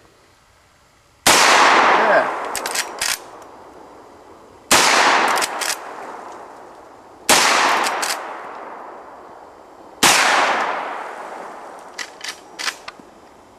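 Four shots from a Marlin lever-action .44 carbine, about three seconds apart, each with a long echoing fade. Short clicks of the lever being cycled fall between the shots.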